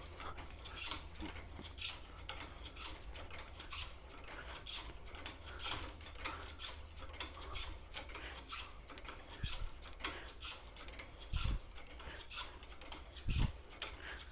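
Cleaning rod scrubbing a bore brush wet with ThorroClean back and forth through a rifle barrel: a repeated scraping rasp, about three strokes a second. Two dull thumps come near the end.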